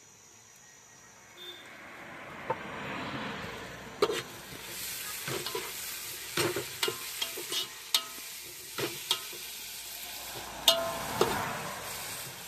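Onions frying in oil in an aluminium pot, with green onion and garlic paste just added. The sizzle builds about two seconds in while a metal slotted spoon stirs and scrapes through them, clinking sharply against the pot's sides again and again, loudest near the end.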